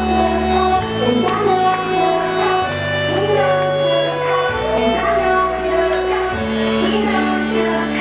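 Dance music with a sung vocal line, played from a DJ set over loudspeakers. Held bass notes change about every two seconds beneath the gliding vocal melody.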